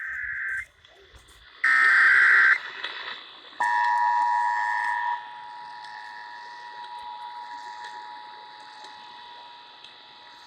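Emergency Alert System test signal: two buzzy digital header bursts of about a second each, then the steady two-tone attention signal starting about three and a half seconds in, loud for a second and a half and then carrying on at a lower level.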